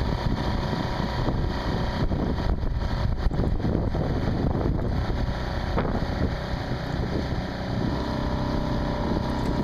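Outboard motor of a motorized canoe running steadily under way, a continuous low drone, with wind buffeting the microphone.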